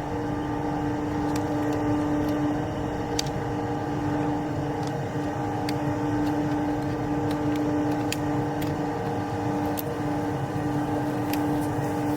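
A vehicle engine running steadily at a constant pitch, with a few light clicks and rattles scattered through it.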